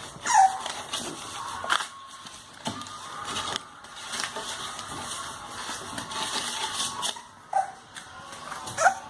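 English bulldog puppies whimpering, with a few short falling yelps, over steady scratching and scuffling of paws and bodies.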